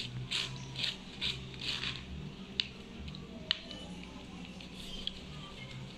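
A metal spoon scraping and pressing wet ground rice pulp through a plastic mesh strainer, in short strokes about two a second, then two sharp taps of the spoon.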